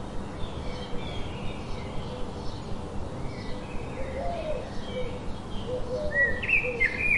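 Birds calling: repeated short chirps and whistled notes, joined from about four seconds in by lower arched calls, over steady outdoor background noise.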